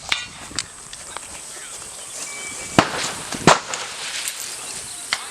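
Centre-fire rifle shots at a firing range: several sharp reports, the two loudest near the middle about two-thirds of a second apart, with fainter ones near the start and near the end.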